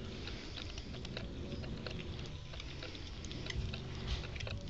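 Cats chewing and tugging at a piece of raw meat: scattered wet clicks and smacks, irregular, over a low rumble underneath.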